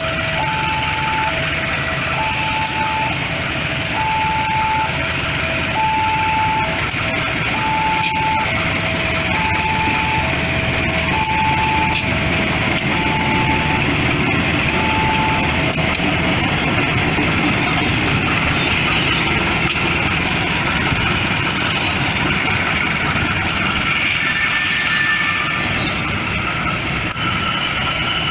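Railway level-crossing warning alarm sounding in alternating high-low electronic beeps, about one pair a second, stopping about 16 seconds in. Under it, the steady rumble of a train running past.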